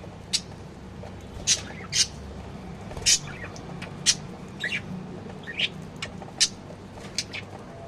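Small birds chirping: short, high, separate chirps about once a second at irregular intervals, over a steady low background hum.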